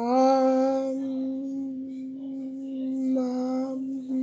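A child's voice holding one long sung note at a steady pitch. It slides briefly up into the note at the start, and it brightens again about three seconds in.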